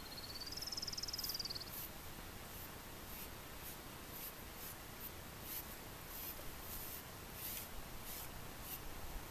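Faint, quick scratchy strokes, about two a second, of a grooming tool being drawn through an Icelandic horse's shedding coat. A high trilled note rising in pitch is heard through the first two seconds.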